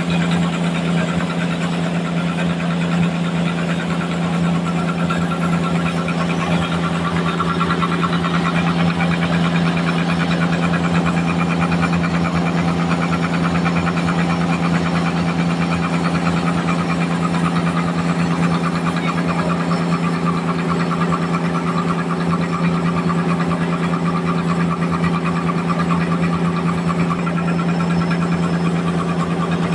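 Band sawmill running steadily, a constant low hum with no pauses or changes.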